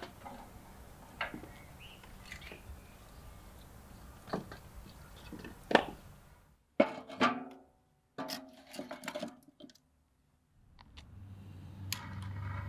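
Pieces of dry wood kindling knocking and clattering as they are stacked by hand into a round steel fire stove, in scattered separate knocks. Near the end a handheld butane blowtorch starts with a click and then hisses steadily with a low rumble.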